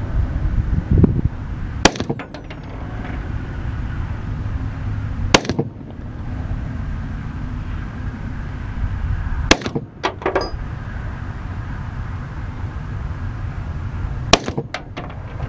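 Four AR-15 rifle shots fired at a padlock, spaced about four seconds apart, each a sharp crack with a brief tail.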